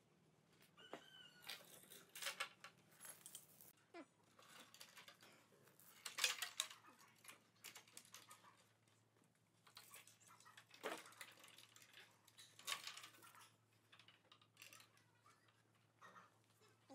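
Faint, scattered metal clinks and wooden knocks as the steel chains of a wooden porch swing are handled and hooked to its frame, with a few louder clatters among them.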